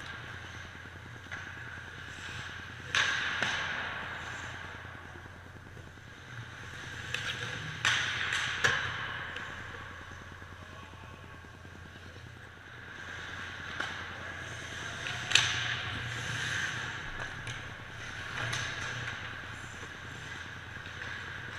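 Ice hockey play on an indoor rink: skates scraping and carving the ice, with sharp clacks of sticks and puck against the boards or net several times, loudest about three, eight and fifteen seconds in. A steady low hum runs underneath.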